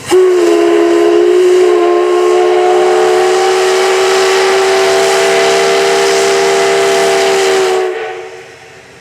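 Steam locomotive D51 200's whistle sounding one long blast of about eight seconds: several steady tones together over the hiss of escaping steam, starting suddenly and fading away near the end.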